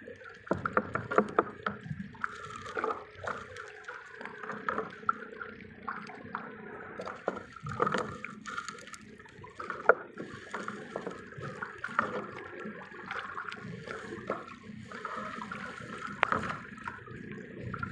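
Water splashing and gurgling, broken by frequent irregular knocks and clicks.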